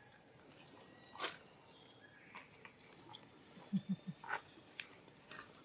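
Macaques drinking from a muddy puddle: a few faint, scattered mouth clicks and slurps, with three short low sounds in quick succession about two-thirds of the way in.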